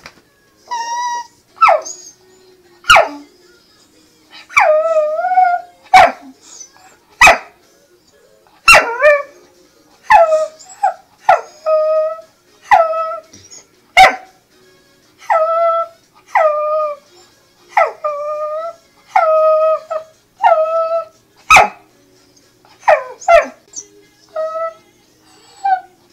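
Wire-haired dachshund whining over and over at its chew bone, a string of short, high cries that each slide down and then hold, with a few sharp clicks between them. The whines are begging, aimed at the bone.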